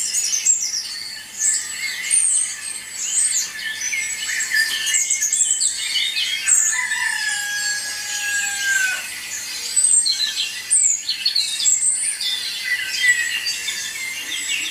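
Countryside birdsong ambiance: many small birds chirping and trilling in quick, overlapping high calls, with one long, slowly falling call about seven seconds in.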